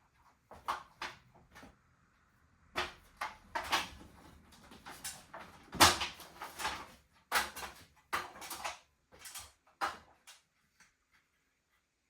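A run of irregular knocks and clatters from hard objects being handled, the loudest about six seconds in, dying away after about ten seconds.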